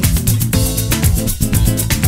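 Background music: plucked guitar over a quick, steady percussion beat.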